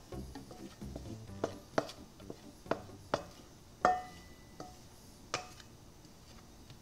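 Banana bread batter being scraped out of a stainless steel mixing bowl into a metal loaf pan: a handful of irregular sharp taps and knocks of the bowl and utensil, one with a brief metallic ring about four seconds in.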